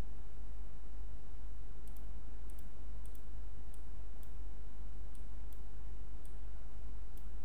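Computer mouse clicking: a series of sharp, irregularly spaced clicks starting about two seconds in, over a steady low hum.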